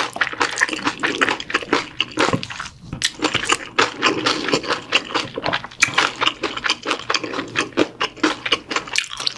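Spoon stirring sauce-coated bibimbap in a stainless steel bowl: a dense run of wet squishing and clicking, close-miked. Mouth-close chewing is mixed in.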